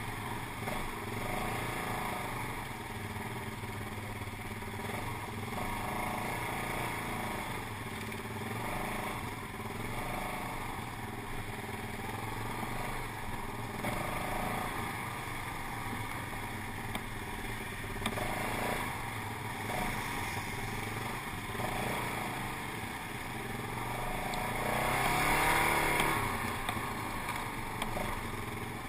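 Quad bike (ATV) engine running under way on a rough dirt trail, with a few brief knocks. About 25 seconds in, the engine revs up and grows louder, then drops back.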